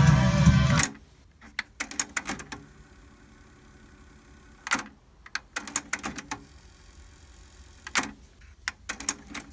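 Music playing from a Kenwood KX-2520 cassette deck cuts off a little under a second in. Then come several clusters of sharp clicks and clunks from the deck's transport keys and tape mechanism as it is stopped and switched between modes.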